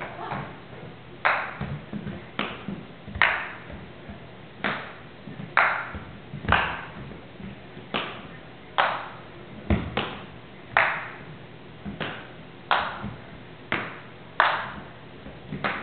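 Ping-pong ball being batted with paddles and bouncing on a wooden floor. It makes a string of sharp pings and taps at uneven spacing, roughly one a second, each ringing briefly in a large hall.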